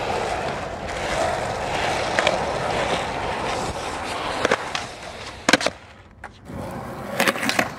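Skateboard wheels rolling on pavement, with sharp knocks of the board against the ground several times. The loudest is a double hit about five and a half seconds in.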